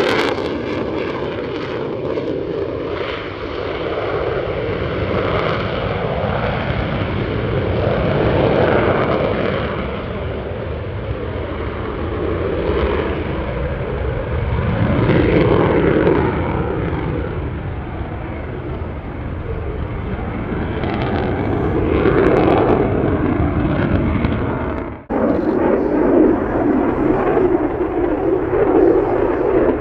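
Jet noise from an F-35A Lightning II's single Pratt & Whitney F135 afterburning turbofan during a flying display. It swells and fades repeatedly as the jet manoeuvres, with a brief sudden break about 25 seconds in.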